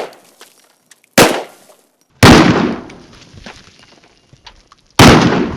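Magna-ported Desert Eagle .50 AE pistol firing three shots: two about a second apart, then a third about three seconds later. Each is a sharp report with a ringing tail, the middle one dying away longest. The tail of an earlier shot fades at the start.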